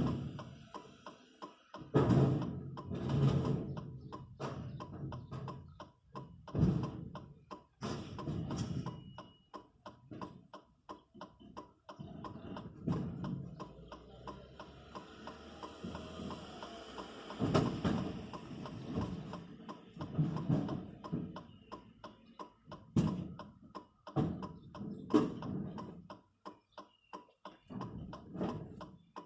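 Music with a quick, steady ticking beat, broken by several heavier thumps.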